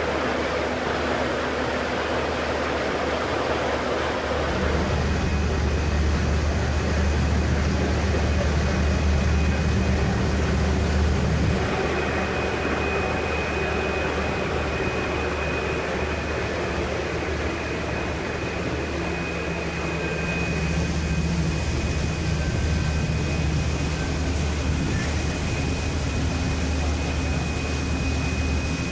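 Passenger ferry's engine droning steadily, a deep hum under the rushing of the churning wake and wind. A thin, steady high whine joins in about five seconds in and stays.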